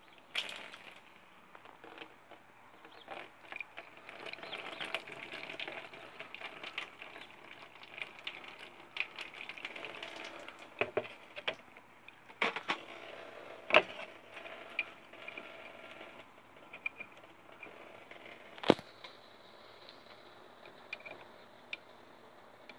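Faint, irregular scraping and clicking of small hard objects being handled, with a few sharp knocks, the loudest near the middle and about three-quarters of the way through.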